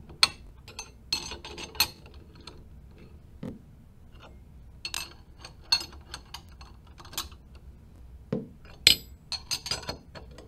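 Steel wrenches clinking and tapping against the hex nuts and bolts of a flanged pipe joint as the fasteners are tightened: irregular sharp metallic clinks coming in several small clusters.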